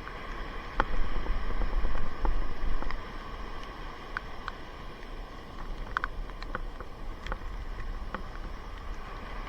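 Strong wind buffeting the microphone in gusts, loudest between about one and three seconds in, with scattered light clicks.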